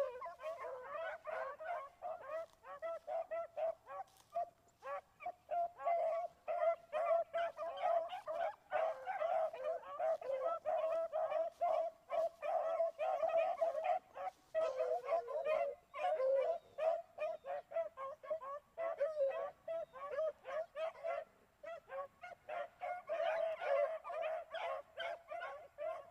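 A pack of beagles baying continuously as they run a rabbit's scent trail, many short overlapping yelps with hardly a break.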